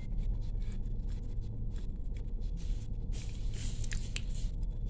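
Faint rustling and scraping of malunggay (moringa) leaves being handled, a little busier in the second half, over a steady low hum.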